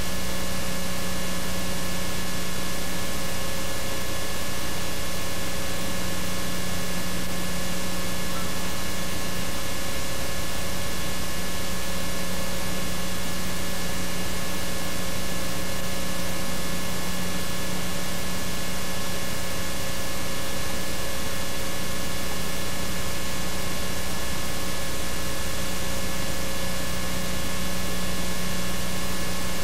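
Steady electrical hum with a layer of hiss, several fixed tones holding unchanged, typical of the background noise of an analog home-video recording.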